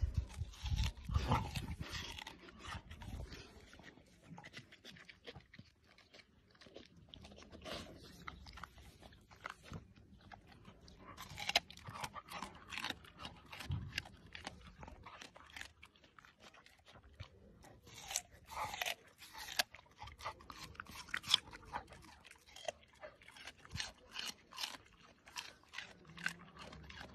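English bull terrier biting and chewing watermelon: crunching bites that come irregularly, in bunches, all through.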